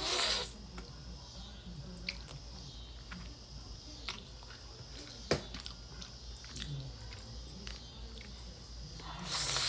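Noodles slurped off a fork, a loud sucking hiss at the start and again near the end, with quiet chewing and a few small clicks between.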